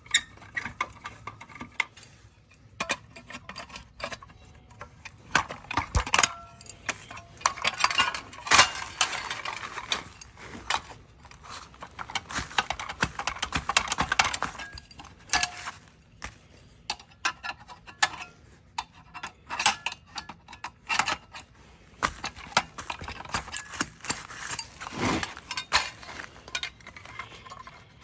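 Irregular metallic clicks, clinks and scrapes of hand tools and small parts being handled, as a boiler aquastat control is swapped and wired, with rougher scraping stretches.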